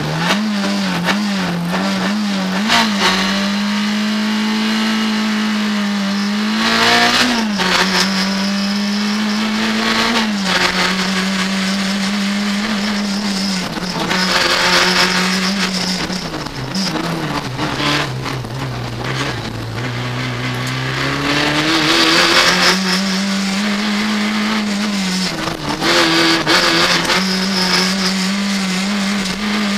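Renault Clio RS rally car's four-cylinder engine at full throttle, heard from inside the cabin. It holds a high, steady note, and the pitch drops and climbs again several times as the driver brakes, changes gear and accelerates through corners.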